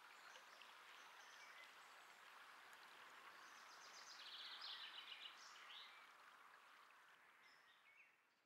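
Faint outdoor ambience: a steady hiss with small birds chirping, including a run of quick repeated chirps about four to five seconds in. It fades out toward the end.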